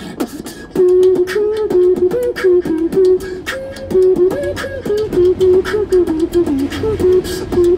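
Beatboxer performing through a handheld microphone and small portable amplifier: a hummed melody line held over rapid, sharp click and snare sounds made with the mouth.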